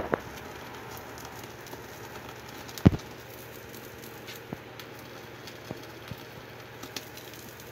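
Gas stove burner hissing steadily while a piece of egg burns in its flame, with scattered faint crackles and clicks and one sharper click near three seconds in.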